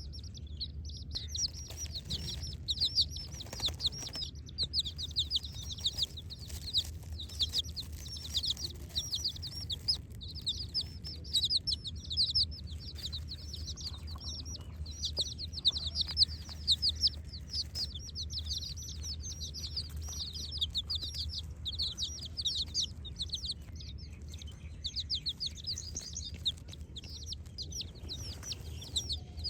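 Many chicks peeping continuously, a dense stream of rapid, overlapping high chirps, over a low steady hum.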